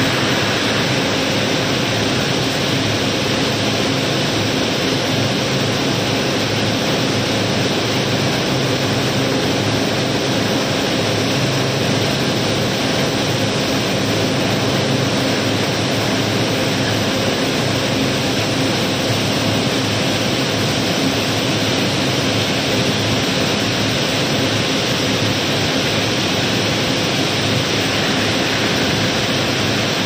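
Gravel pouring down a chute in a steady, even rush, with no single stones standing out.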